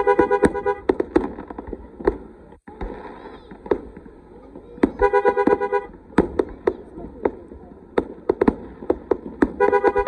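Fireworks going off in a dense run of bangs and crackles, while a car horn sounds three one-second honks: at the start, about five seconds in, and near the end.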